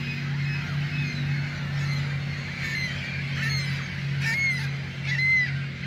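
A flock of geese honking, short calls repeating over and over and growing louder and more frequent in the last couple of seconds, with a steady low hum underneath.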